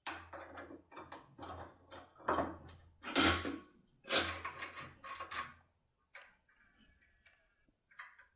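Small metal clicks and scrapes of a locksmith's foil-impression tool, the second profile of a Securemme K75 set, being inserted and worked in a lock cylinder. The clicks come thick for about five seconds, then thin out to a few scattered ticks.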